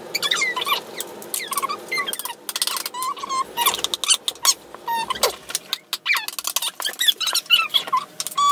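A small hammer tapping nails into a wooden kids' craft kit in quick light strikes, with repeated short high-pitched squeaks throughout.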